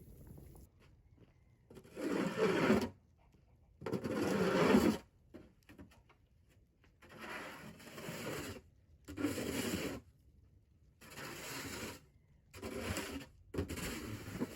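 A series of about seven scraping or rubbing strokes, each about a second long, coming every second or two.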